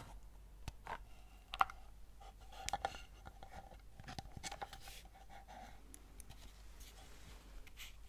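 Wooden box of small alphabet stamps handled close to the microphone: light taps, clicks and scratches of fingers and fingernails on the wood as it is turned, with a sharper click about one and a half seconds in.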